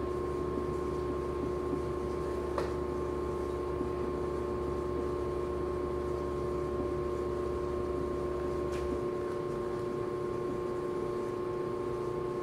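Steady room hum with several constant pitches. A deep rumble beneath it cuts off about nine seconds in, and there are two faint clicks.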